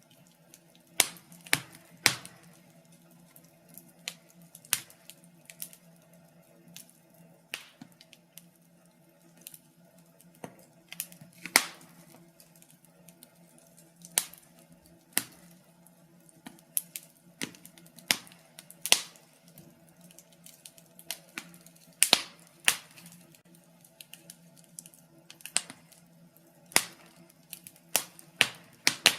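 Wood fire crackling in a fireplace: irregular sharp snaps and pops, some much louder than others, over a faint steady low hum.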